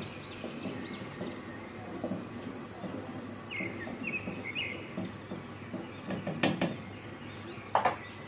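A wooden spoon stirring thickening milk and rice in an aluminium pot, with small irregular knocks and scrapes against the pot and two louder knocks near the end as the spoon is lifted out. Birds chirp faintly in the background.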